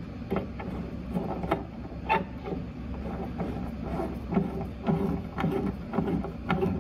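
Hand screwdriver driving slotted screws into the metal lid-support and hinge hardware of a wooden secretary: irregular small clicks and scrapes of the blade turning in the screw head, busier in the second half, over a steady low hum.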